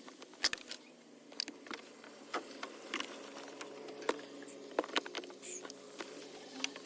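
Scattered sharp clicks and light metal taps from hand tools and bolts while the alternator is being bolted back on from under the truck, over a faint steady hum.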